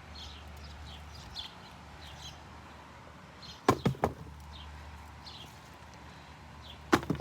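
Two quick clusters of sharp knocks, about three strokes roughly three and a half seconds in and two more near the end, over birds chirping and a low steady hum.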